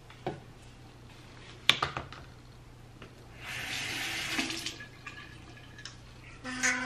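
Bathroom sink faucet running water into the basin for about a second and a half, a little past the middle. A sharp click comes earlier, about a second and a half in, and a few soft clicks follow the water.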